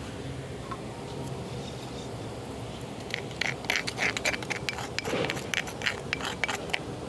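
A spoon scraping and clicking against a mortar as ground alum powder is scooped out into another vessel: a quick, irregular run of scrapes and clicks starting about three seconds in.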